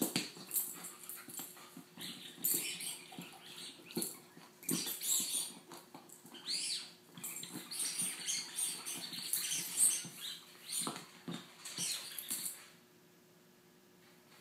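Akita chewing on a rolled newspaper-print toy: irregular crinkling and crunching that stops suddenly about two seconds before the end.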